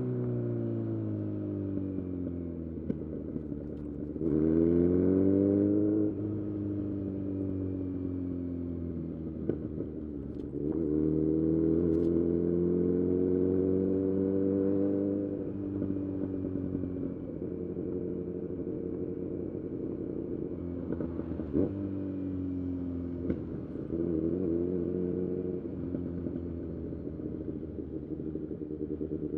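Kawasaki Z900's inline-four engine through an SC-Project full-system exhaust on a ride. The engine note falls off the throttle, then climbs in a hard acceleration about four seconds in and again at about eleven seconds, holding high for a few seconds. Shorter rises and a few sharp clicks follow, and it settles to a lower steady cruise near the end.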